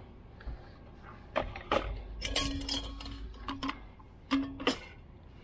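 Stainless steel canister and lid clinking and knocking as they are handled on a wire shelf, in a run of sharp clicks that is busiest about halfway through. A low steady tone sounds under the clicks for over a second midway and again briefly near the end.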